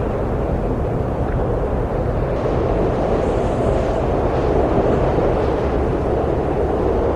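Steady low rushing wind, swelling a little around the middle.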